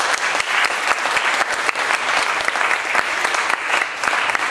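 Audience applauding, many hands clapping at once in a steady, dense round.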